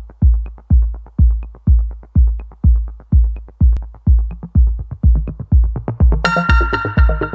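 Electronic backing music with a deep bass kick about twice a second; a bright synth line comes in near the end.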